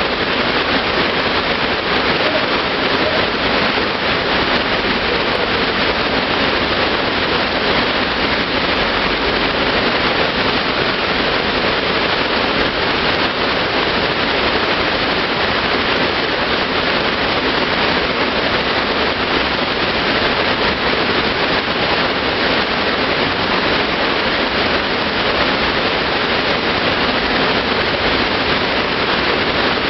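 A thin sheet of water pumped at speed over an artificial wave-riding machine, making a loud, steady rush.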